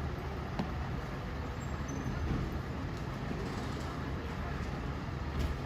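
Road traffic noise: a steady low vehicle engine rumble with a single sharp click about half a second in, and no siren sounding.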